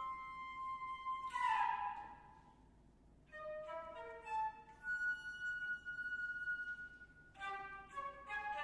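Concert flute with piano in a freely paced passage. A held flute note bends downward and fades to a brief pause. A few notes then lead to a long held high note, and a quick run of notes follows near the end.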